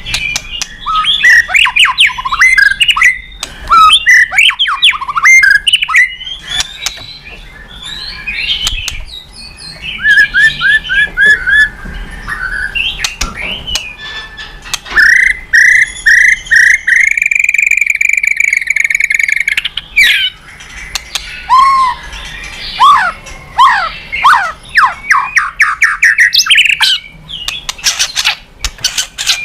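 White-rumped shama singing a loud, varied song of fast sweeping whistles and trills. Partway through comes a quick run of repeated notes, then one long held whistle, then more swooping notes.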